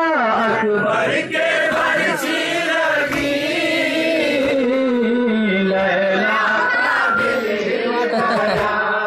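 Male voices chanting a nauha, a Shia Muharram lament, in drawn-out sung lines that slide slowly in pitch.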